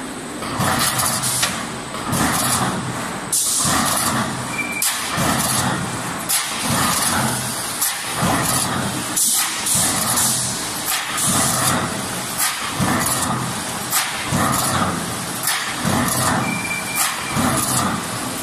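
Automatic CNC hydraulic guillotine shearing line running: a steady machine hum under rough, clattering bursts with sharp clicks that repeat about every one and a half to two seconds.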